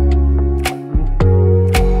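Background music with a steady beat: held bass and chord notes that change every half second or so, under crisp percussion ticks.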